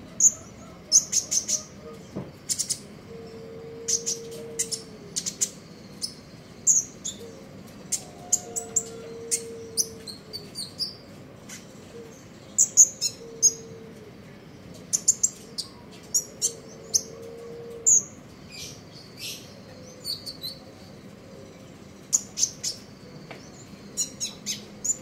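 Konin songbird twittering: quick high chirps and clicks in rapid clusters, again and again. Behind it a low steady hoot, about a second long, recurs every few seconds.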